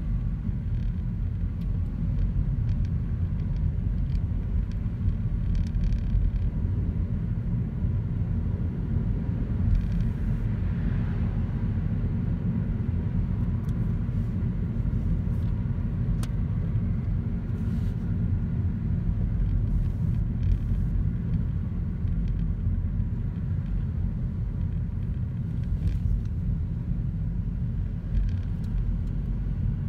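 Steady low rumble of engine and tyre road noise inside the cabin of a moving car.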